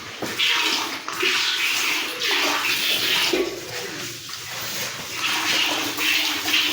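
Milk squirting into a pail as a cow is milked, in repeated hissing spurts.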